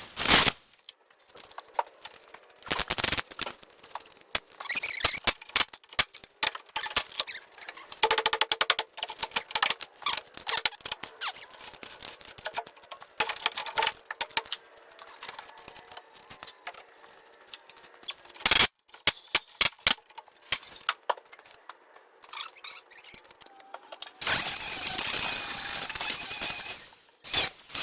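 Work on a rusted Jeep Cherokee inner sill: irregular sharp metal clicks and knocks, then a few seconds of loud steady hissing near the end.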